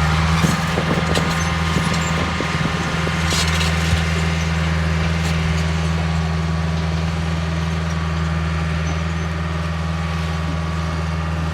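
Bulldozer's diesel engine held at steady high revs, with a few metallic clanks in the first few seconds.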